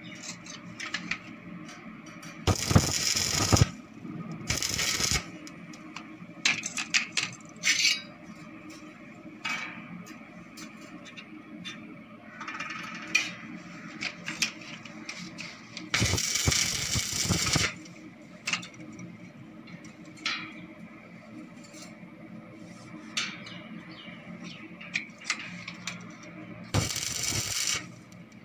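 Stick arc welding on a steel stair frame: four short tack welds, each a burst of arc sizzle a second or two long. Between the welds there are scattered metal clinks and taps.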